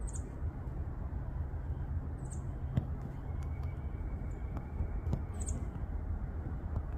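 A bird's short, very high-pitched chirp, heard three times about two to three seconds apart, over a steady low rumble.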